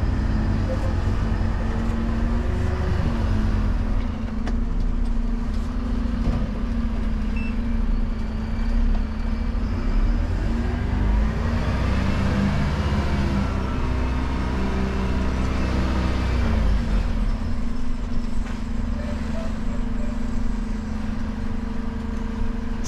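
Dennis Elite Plus refuse truck's engine heard from inside the cab while the truck drives slowly, its note rising and falling twice as it pulls away and eases off.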